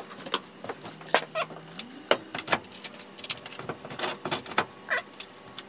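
Irregular sharp clicks and knocks of metal tools handled on a wooden workbench: a torch cylinder set down and a bench vise's handle cranked to clamp a blade. A faint low hum runs underneath and rises in pitch about two seconds in.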